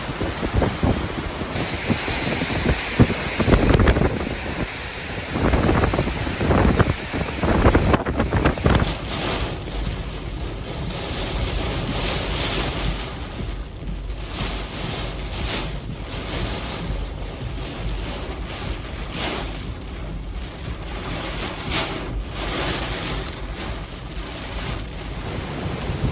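Hurricane-force wind gusting hard and buffeting the microphone. It surges heavily in the first eight seconds or so, then settles to a steadier rush with repeated gusts.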